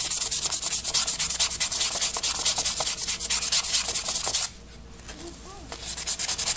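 Sandpaper rubbed by hand in rapid back-and-forth strokes over a rusty steel hatchet head, taking off layers of rust. The scrubbing stops about four and a half seconds in and starts again near the end.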